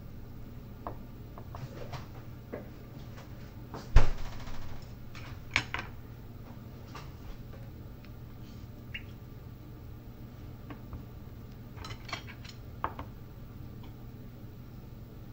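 Scattered knocks and clicks of food being cut and plated: a kitchen knife cutting broccoli on a plastic cutting board and chopsticks tapping against a ceramic plate, with the loudest knock about four seconds in.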